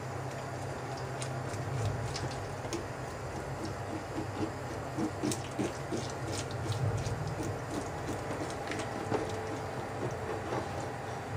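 Tap water running into a stainless steel sink while gloved hands rub and rinse the scales off an American shad, with small splashes and clicks of scales and water, busiest in the middle. A steady low hum runs underneath.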